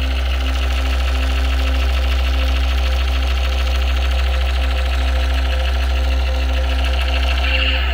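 Battery-powered light-up toy Desert Eagle pistol running its electronic firing effect: a fast, steady, machine-like rattle over a deep steady hum.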